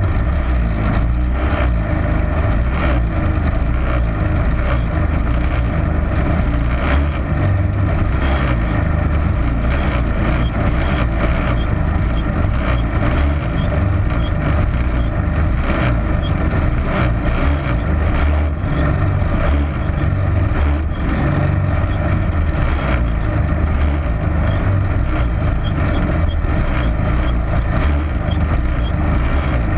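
Small racing-kart engine idling steadily, heard up close from on board, a continuous low rumble with no revving.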